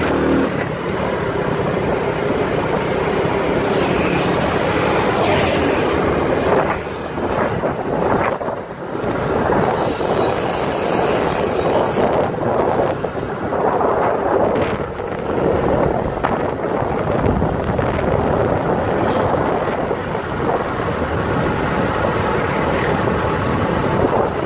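Wind rushing over the microphone on a moving motorcycle, mixed with the motorcycle's engine and road noise, loud and steady throughout.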